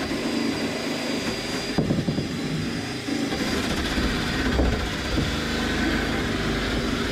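Angle grinder ("death wheel") running steadily as it grinds old caulk out of a fiberglass daggerboard well, cleaning the crack down for fiberglass. A thin high whine sits over the grinding for the first couple of seconds.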